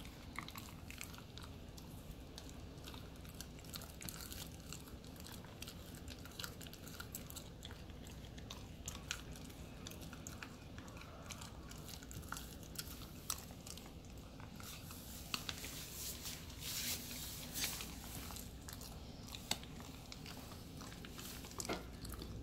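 Husky puppy chewing a raw chicken neck, irregular wet crunching and crackling as her teeth break the bones, busier for a few seconds in the second half.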